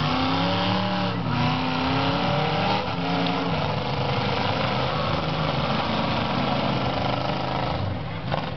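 Demolition derby car engines revving hard, their pitch climbing and falling in the first few seconds, over a steady loud wash of engine noise.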